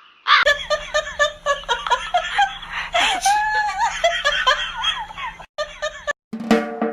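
Laughter: many short giggling bursts that rise and fall in pitch, some overlapping.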